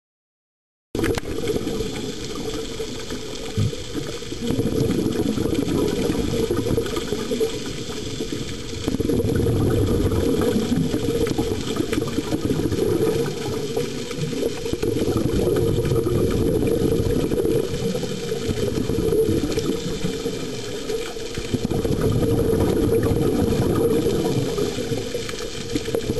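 Muffled underwater rumble and bubbling from scuba divers' breathing, picked up through a camera underwater. It starts about a second in and swells louder and softer every few seconds.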